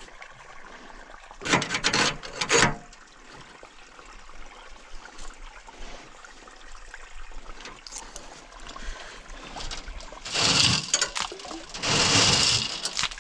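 Water splashing and trickling, with louder bursts of sloshing about a second and a half in and again near the end.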